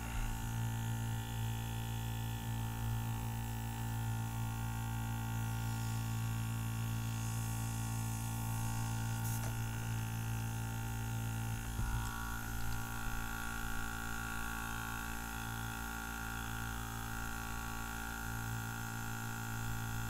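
Small mains-powered airbrush air compressor running steadily with a pitched hum; a higher tone joins about twelve seconds in while it is handled.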